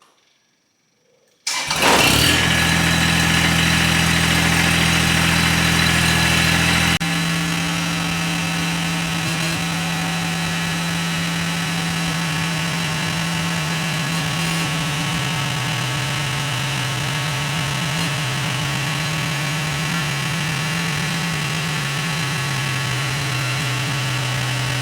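An engine starts about a second and a half in and runs steadily, settling to a slightly lower, quieter speed about seven seconds in.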